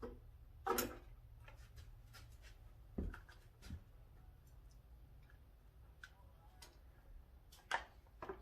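Scattered clicks and knocks of hand tools and metal parts being handled while a motorcycle is taken apart, at irregular intervals, the sharpest about a second in, three seconds in and near the end, over a steady low hum.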